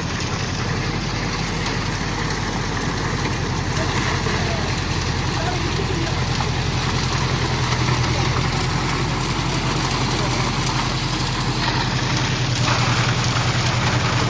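Diesel engine of a Schwing Stetter SLM600 self-loading concrete mixer running steadily, getting a little louder about halfway through and again near the end.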